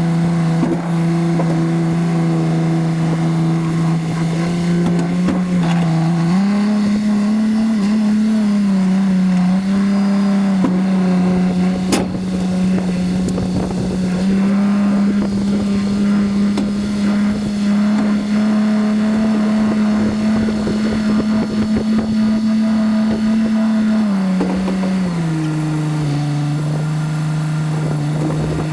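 A vehicle engine running under way. Its pitch steps up about six seconds in, holds steady, and drops back down about 24 seconds in as the engine speeds up and slows.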